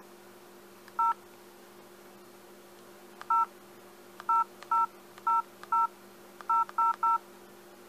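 Keypad tones of an LG 441G phone as keys are pressed: nine short dual-tone beeps, each the same pitch pair, spaced irregularly with several in quick succession near the end, over a steady low hum.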